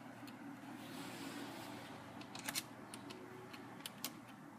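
Faint scattered clicks and light scraping of a small screwdriver tightening the screws that hold a laptop's LCD panel in its frame. The sharpest click comes about two and a half seconds in.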